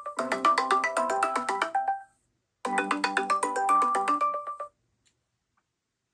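Samsung Galaxy phone's brand ringtone for a Google Duo (Meet) incoming call, played as two short bursts of a quick melody about two seconds each, half a second apart, then cut off for the last second and a half.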